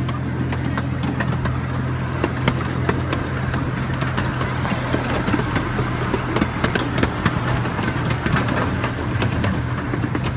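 Open-car miniature train running: a steady low engine hum with many irregular clicks and rattles from the moving cars.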